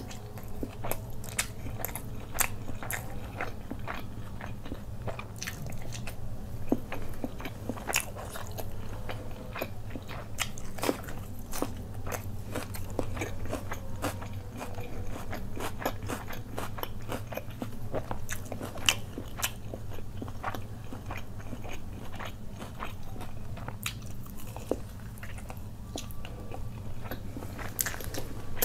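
Close-miked chewing of hand-fed mouthfuls of fried rice and butter chicken: many short wet mouth clicks and crunches of biting and chewing, over a steady low hum.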